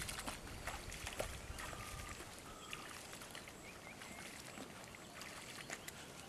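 Faint sloshing and small splashes of people wading through shallow marsh water, with a few brief high chirps in the background.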